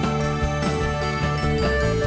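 Instrumental background music: a steady low bass under held higher notes that change every fraction of a second.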